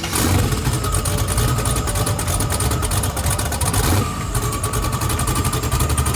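Twin-turbo Camaro's V8 engine running near idle with a rapid, choppy pulse, briefly broken about four seconds in.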